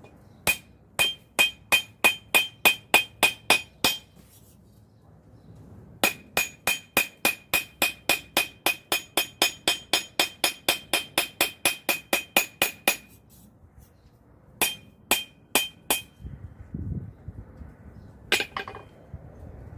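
Hammer blows on hot steel over an anvil, forging the bevels of a knife blade: a run of about ten ringing strikes at roughly three a second, a pause, a longer run of about two dozen, then four more strikes and a last single blow near the end. Each blow rings with a clear metallic tone.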